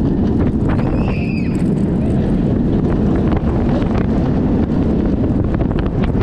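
Heavy wind buffeting the microphone over the low rumble of a steel roller coaster train racing along its track. About a second in, a brief high-pitched cry rises and falls above the noise.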